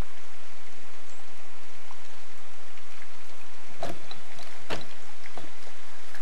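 Steady rainfall with scattered drops ticking on a nearby surface, and two louder sharp knocks of drops about four and five seconds in.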